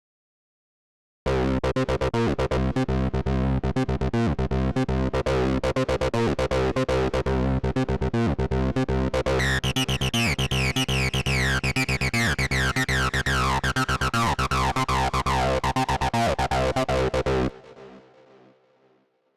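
Arturia Acid V software synthesizer, a TB-303-style acid bass synth, playing a fast sequenced pattern of short notes on a factory preset. About a second in it starts, and partway through, a sweeping filter adds bright overtones that repeatedly slide downward. It stops abruptly near the end and leaves a short fading tail.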